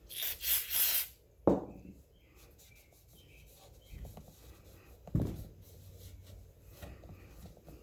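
Aerosol brake cleaner spraying in two or three short hisses, then a rag rubbing and scrubbing on the pump's painted housing, with a sharp thump about a second and a half in and another about five seconds in.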